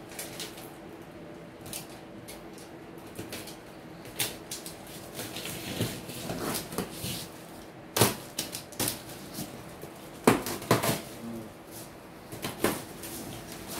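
Scattered knocks, clicks and clatters of things being handled at a workbench, over a faint steady hum. The loudest knocks come about eight seconds in and again twice close together just after ten seconds.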